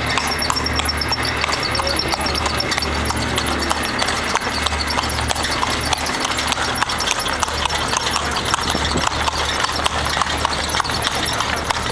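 Horse's hooves clip-clopping steadily, over a low steady rumble.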